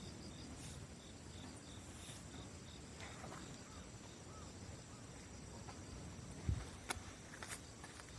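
Insects chirping faintly outdoors: a high chirp pulsing about four times a second over a steady, higher trill. A few sharp clicks come near the end.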